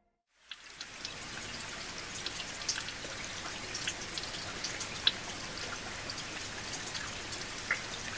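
Steady rain-like patter: an even hiss dotted with scattered drip-like ticks, starting about half a second in.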